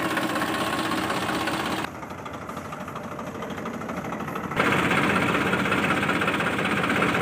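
Massey Ferguson 1035 DI tractor's three-cylinder diesel engine idling steadily. About two seconds in it turns quieter and muffled for nearly three seconds, then comes back louder.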